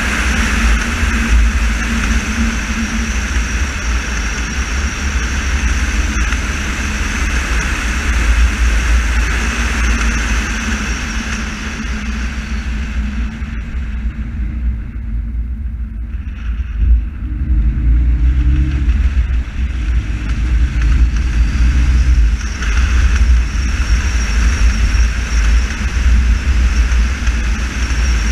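Car driving on a wet country lane, heard from inside the cabin: a steady low engine and road rumble with tyre noise, which eases off for a few seconds about halfway through and then builds again as the car picks up speed.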